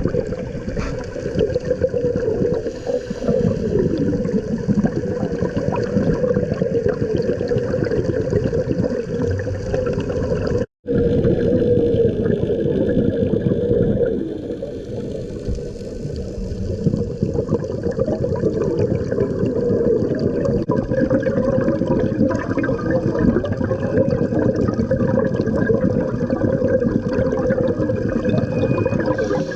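Scuba diver breathing underwater through a regulator, the exhaled air bubbling and gurgling. The sound drops out completely for a moment about eleven seconds in.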